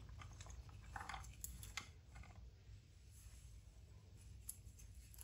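Faint rustling and a few soft clicks of cut okra pieces falling back into a plastic basket as they are tossed by hand, mostly between one and two seconds in.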